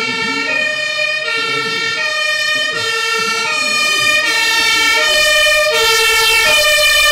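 German fire engine's two-tone siren (Martinshorn), switching between a lower and a higher note about every three-quarters of a second. It gets slightly louder and cuts off suddenly near the end.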